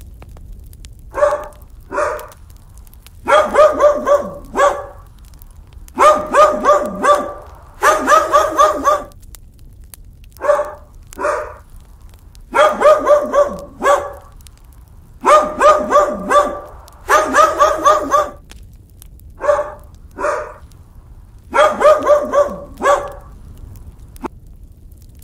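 A dog barking repeatedly: single barks and quick runs of several barks in a row, with short pauses between them.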